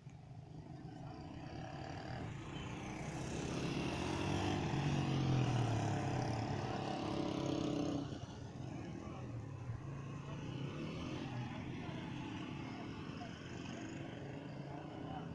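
A motor vehicle engine drawing closer and growing louder, loudest about five seconds in, then falling away abruptly at about eight seconds; a fainter engine sound goes on after that.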